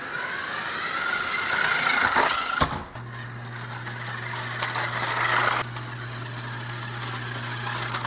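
Toy remote-control buggy (Dickie Toys RC Dirt Slammer) driving, its small electric motor whining and rising slightly in pitch. The whine breaks off sharply about two and a half seconds in, runs again for a few seconds, then drops away, with a steady low hum underneath the second half.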